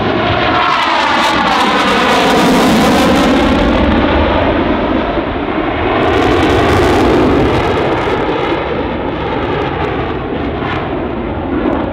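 Jet noise from the twin General Electric F404 turbofans of a CF-18 Hornet manoeuvring overhead. It is continuous, with slowly sweeping changes in tone, and swells twice: about two seconds in and again about six seconds in. It eases off toward the end.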